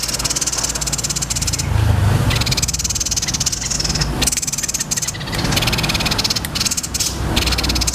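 Small songbird giving rapid, buzzy rolling trills in several long runs with short breaks, a harsh 'roll' like that of fighting sparrows.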